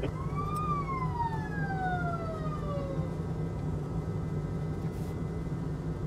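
A siren's wail: one tone that rises briefly, then glides slowly down over about three seconds. A steady low hum runs beneath it.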